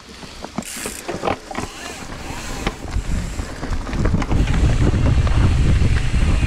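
Wind rushing over the camera microphone on a mountain bike, swelling about three seconds in as the bike picks up speed down a dirt trail, with scattered clicks and rattles of the bike and tyres over leaves before it.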